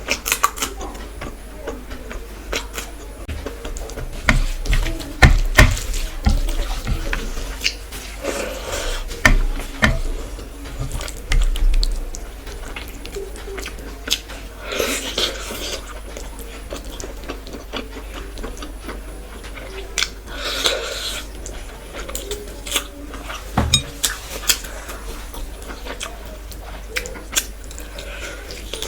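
Close-miked eating sounds: chewing and mouth noises, food handled on a plate with many small clicks and clinks, and a few longer wet slurps about a third and two-thirds of the way through.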